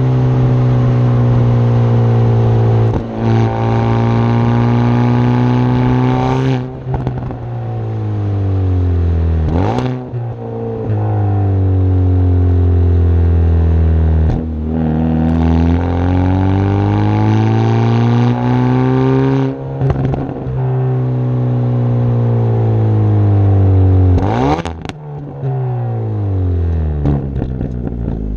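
Hyundai i30 N Performance's turbocharged 2.0-litre four-cylinder engine and exhaust pulling through the revs and easing off several times, the note rising and falling. Sharp cracks from the exhaust come about six times at gear changes and lift-offs: the car's deliberate pops and bangs.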